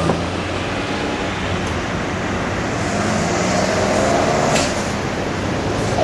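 Kintetsu Minami Osaka Line electric train running past a level crossing: a steady rumble, with a faint motor whine in the middle.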